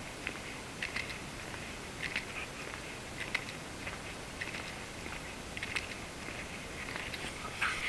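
Footsteps of a hiker walking on an asphalt road: soft, irregular scuffs and crunches, a few a second.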